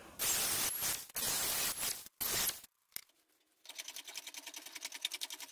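Hand file scraping on the steel flange of a wheel hub: three long strokes, then after a short gap a fast, even run of short scraping ticks.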